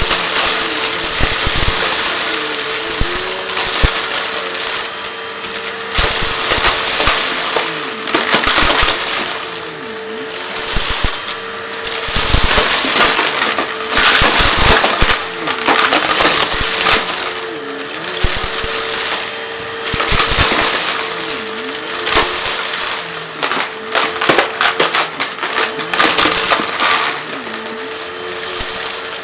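Vacuum cleaner running with a steady motor whine while it sucks up crunchy debris, with dense crackling and rattling as the grit is drawn in. The loudness swells and drops every couple of seconds, as the cleaner head is pushed back and forth.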